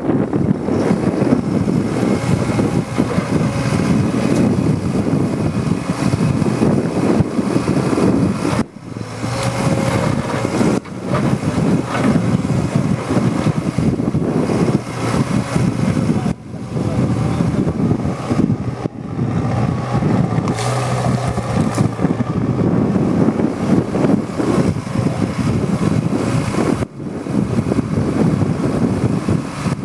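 Liebherr 914 Compact excavator running, a steady engine drone with hydraulic working noise, broken by several sudden brief drops.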